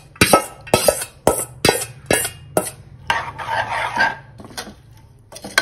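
Metal spoon knocking sharply against a steel bowl about twice a second, seven or so times, as soaked dal is scraped into an aluminium pressure cooker. It is followed by a stretch of the spoon stirring and scraping through the watery dal in the cooker, with two more clinks near the end.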